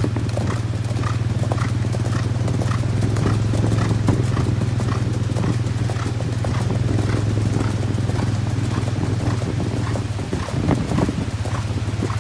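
Several cantering horses' hooves striking a hard road in a quick, even clip-clop of about three beats a second, over a steady low hum.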